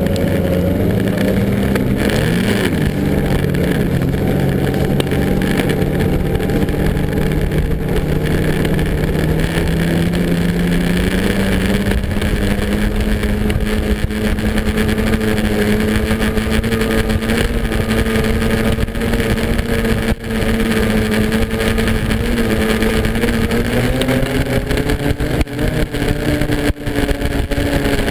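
Snowmobile engine running under way. Its pitch dips and recovers about two seconds in, climbs gradually and then holds steady, and rises again near the end.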